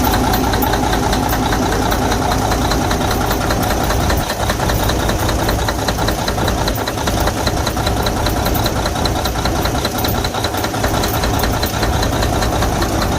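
Detroit DD15 inline-six diesel engine idling with a rapid, even ticking clatter over its steady hum. This is typical of a damaged cylinder head valve seat that is losing compression.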